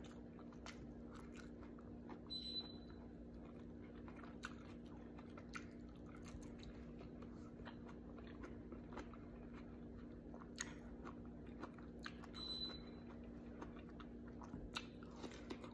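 Quiet chewing of a mouthful of pork menudo and rice, eaten by hand, with small scattered mouth clicks over a steady low hum. A faint short high beep sounds twice, about ten seconds apart.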